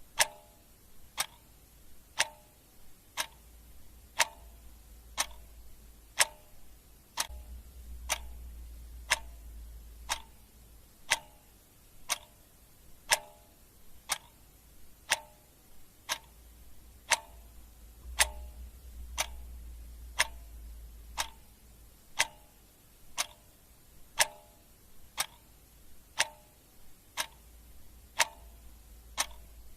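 Clock ticking steadily about once a second, alternating a sharper tick with a slightly fuller tock.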